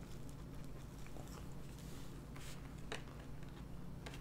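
A person biting and chewing a flaky croissant close to the microphone, with soft mouth sounds and a few crisp crackles.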